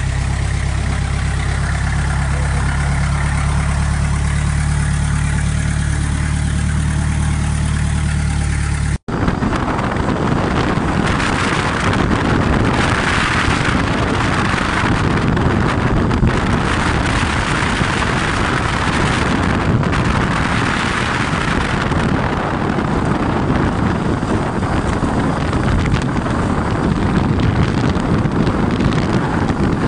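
A boat engine running with a steady low hum for about nine seconds. Then an abrupt cut to a motorcycle riding a dirt road: engine running under a rushing noise that swells and eases a couple of times.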